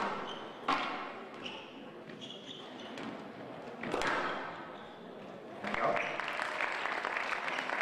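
Squash ball being struck and hitting the court walls: a few sharp cracks, the last about four seconds in with a ringing tail. From about six seconds in, spectators applaud.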